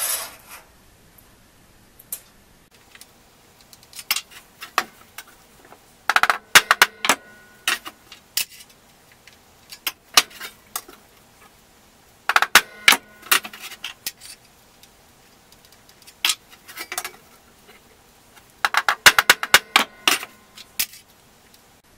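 Steel plate and teeth of a one-man crosscut saw clicking and clinking as the teeth are worked by hand for setting. The clicks come in three quick clusters about six seconds apart, with scattered single clicks between, and the blade rings briefly during some clusters.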